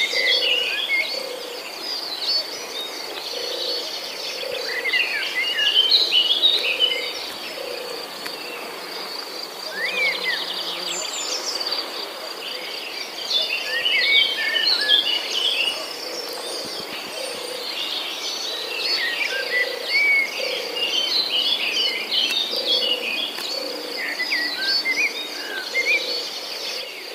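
Outdoor nature ambience: birds chirping in repeated bursts over a steady, high insect trill, with a low call repeating about once a second.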